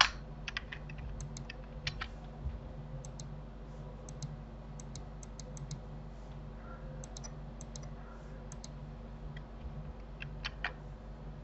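Computer keyboard and mouse clicks, scattered and irregular, a few a second, with a louder pair about ten seconds in, over a faint steady low hum.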